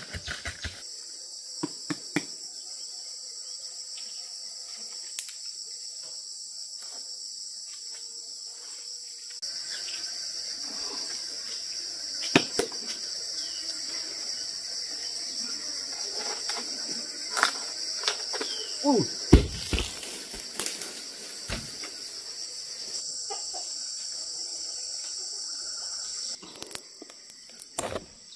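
A steady, high-pitched chorus of insects, crickets or similar, trilling throughout, with scattered sharp clicks and knocks and a few louder thumps about two-thirds of the way through.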